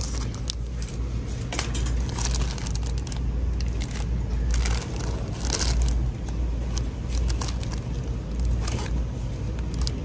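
Plastic-wrapped sticker packs crinkling and rustling as a hand flips through them on a peg hook, in short irregular crackles over a steady low rumble.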